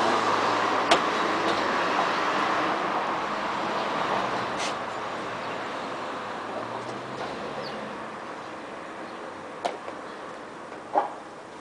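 Street traffic noise that slowly fades, broken by a few sharp knocks: a loud one about a second in and more near the end.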